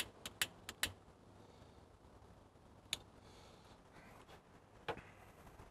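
A lighter clicking as a firelighter under a kindling stack in a pizza oven is lit: about five quick clicks in the first second, then a single click about three seconds in and another near five seconds.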